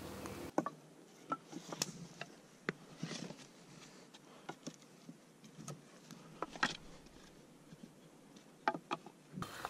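Wooden poles and sticks knocking and scraping against each other as they are set upright side by side in a stick wall, in scattered light taps and clicks with a few sharper knocks.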